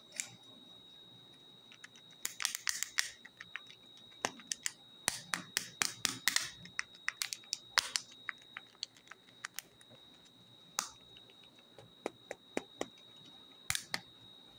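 Foil-wrapped plastic chocolate-egg capsules clicking and crinkling against each other as a hand rummages through a heap of them and picks one up: a string of sharp clicks, densest from about two to seven seconds in, then scattered ones. A faint steady high whine sits underneath.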